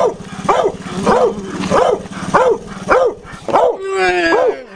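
A dog barking over and over in an excited frenzy, about one bark every half second, ending with a longer, drawn-out howling bark near the end.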